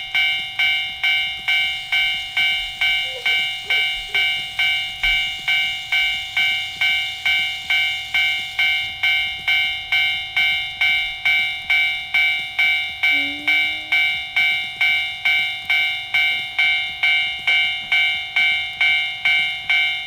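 Electronic Japanese level-crossing warning bell from a Tomix N-gauge automatic crossing, ringing steadily at about two dings a second.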